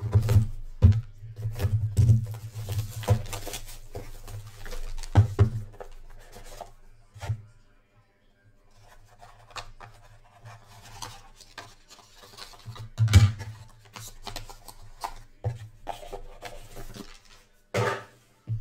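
Plastic wrap crinkling and rubbing as a shrink-wrapped trading-card box is unwrapped and opened by hand, with scattered sharp handling knocks, the loudest about thirteen seconds in.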